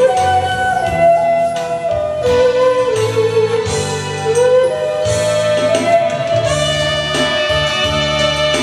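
Homemade end-blown xiao flute made from a fishing rod playing a slow melody with vibrato, sliding between notes and ending on a long held note, over a recorded backing track with keyboard and bass.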